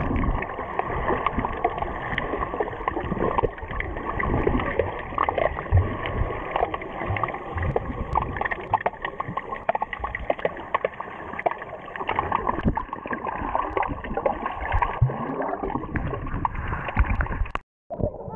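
Water gurgling and sloshing, dull-sounding, with many small knocks and splashes through it, ending in an abrupt cut near the end.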